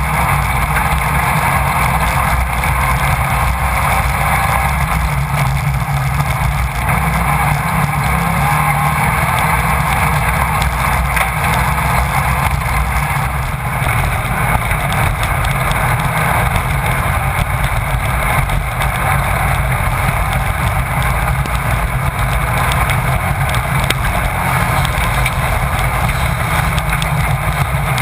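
Onboard sound of a Class 1600 desert race buggy running flat out: its air-cooled 1600 cc VW engine running hard at a steady, loud level, with no letup.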